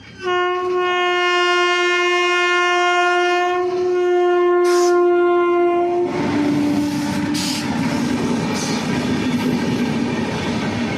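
Locomotive horn of an Indian express train sounding one long blast of about six seconds, then the train passing close by with the steady noise of its wheels on the track.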